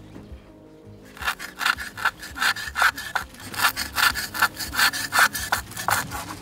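Rough rasping strokes against a bundle of hemp warp threads, about three or four a second, starting about a second in. It is the sound of the warp being worked by hand: tied off with cord or cut.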